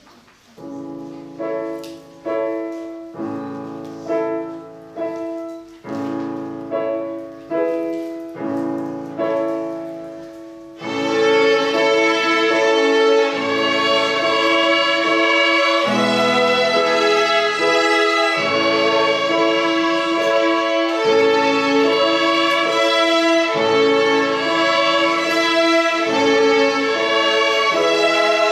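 Children's violin ensemble with piano: a piano introduction of repeated chords, each fading away, then about eleven seconds in the violins come in together and play the tune over the piano.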